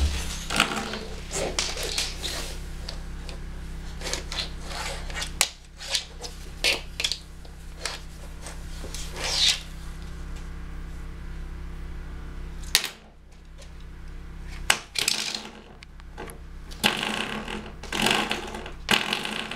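Scattered clicks and knocks of small objects being handled on a wooden floor, then near the end a coiled-spring door stop flicked repeatedly, twanging.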